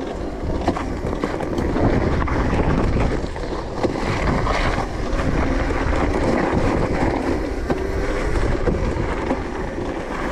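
Wind buffeting the microphone while riding a Razor MX650 electric dirt bike, with tyre rumble on pavement and a faint electric motor whine that rises and falls.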